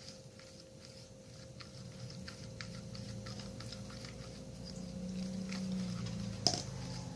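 Plastic spoon stirring thickening clear-glue slime in a plastic container: quick irregular ticks and light scraping, with a sticky, squishy churning that grows louder toward the end and one sharper knock of the spoon about six and a half seconds in. A faint steady electrical hum lies underneath.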